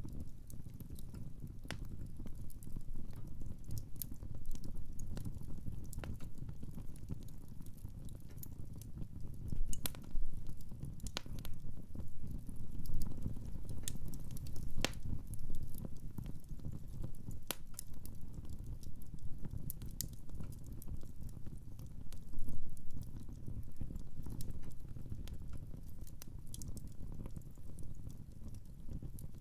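Wood fire crackling in a fireplace: scattered sharp pops and snaps at irregular intervals over a steady low rumble.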